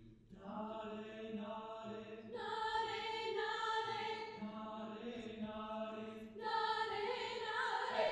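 Choir of young voices singing a cappella, holding long sustained chords. It comes in about half a second in, swells about two seconds later, and swells again near the end.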